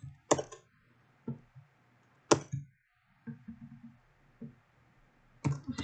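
A few separate computer keyboard keystrokes, sharp clicks about a second apart with the one a little past two seconds in the loudest, followed by a few softer taps.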